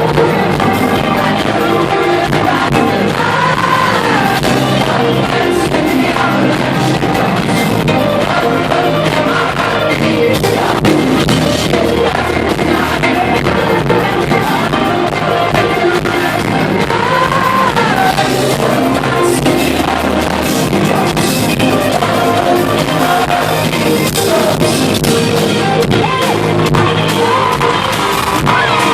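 Music with singing: a loud, dense band mix with a sung vocal line.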